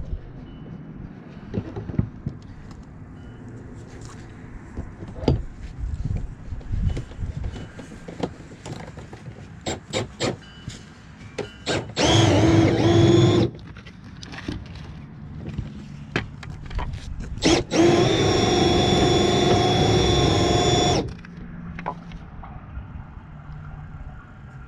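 A power tool running at steady speed in two bursts, a short one and then a longer one of about three seconds, with scattered knocks and clatter of work before and between.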